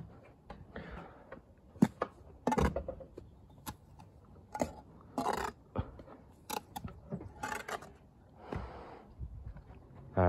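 Steel brick trowel scraping and cutting mortar on a brick course, a string of short scrapes and taps of uneven length, about one a second.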